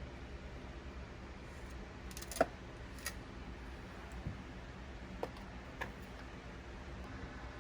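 A few light clicks and taps of small parts being handled on a workbench, the sharpest about two and a half seconds in, over a low steady hum.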